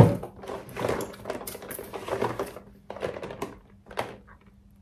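Cardboard advent calendar box being handled and opened: a busy run of scrapes, taps and rustles of card that thins out near the end.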